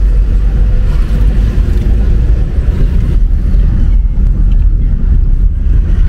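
Steady low rumble of a moving car heard from inside its cabin: engine and road noise while driving.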